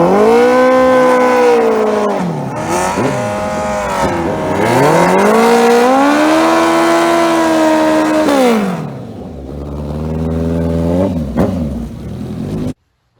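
Turbocharged Suzuki Hayabusa drag bike engine running hard. Its pitch drops about two and a half seconds in, climbs again from about four seconds, holds high, falls near nine seconds, then runs lower before cutting off suddenly near the end.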